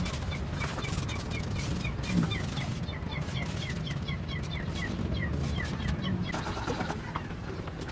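A bird chirps over and over, about three short falling chirps a second, against a low steady background with scattered faint clicks. Near the end a spell of hiss: the pressure sprayer's wand misting insecticide onto the plants.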